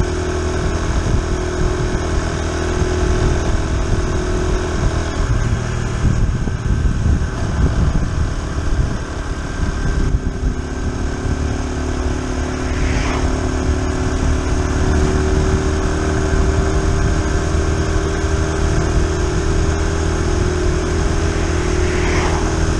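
Honda Super Cub C125's 125 cc air-cooled single-cylinder four-stroke engine running steadily at cruising speed, with wind noise from riding. Oncoming cars sweep past briefly about halfway through and again near the end.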